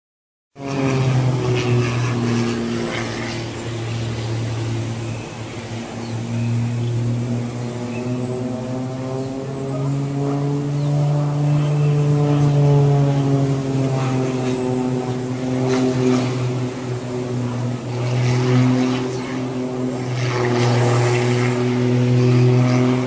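Small propeller plane's piston engine droning steadily overhead, its pitch rising and falling gently as the plane manoeuvres. It starts about half a second in.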